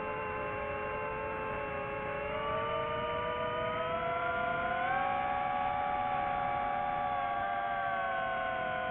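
FPV quadcopter's motors and propellers whining steadily. The pitch climbs gradually to a peak about halfway through as the motors speed up, then eases back down near the end.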